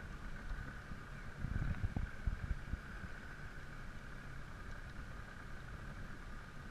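Steady hum of a small fishing boat's motor, with low wind rumble on the microphone that gusts louder about two seconds in.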